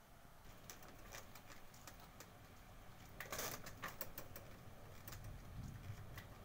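Irregular light ticks and taps close to the microphone, with a louder cluster of clicks and rustling a little after three seconds, over a faint low background rumble.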